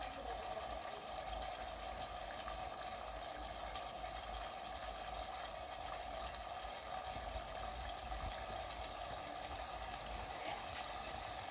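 Vegetables in a little water sizzling and bubbling steadily in a covered frying pan, a steady simmer under the metal lid.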